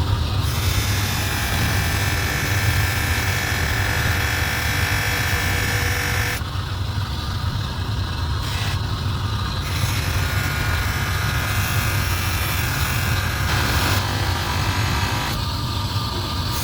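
A workshop machine's electric motor running steadily, with a low hum under a hiss.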